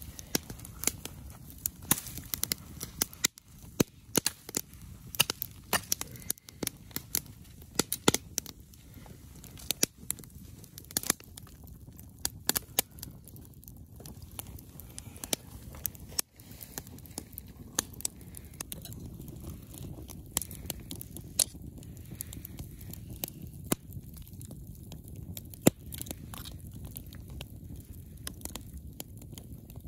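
Wood campfire crackling and popping, with many irregular sharp snaps over the low steady sound of the burning fire.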